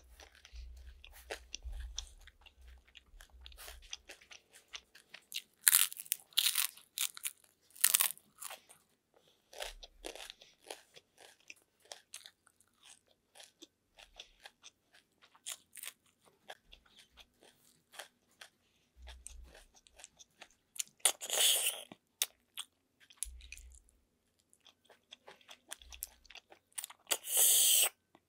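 Close-up eating sounds: crunching and chewing of crispy chicharon (pork cracklings), many small clicks of snail shells being picked from the pile, and several loud sucks as snails in coconut milk are slurped out of their shells, the longest near the end.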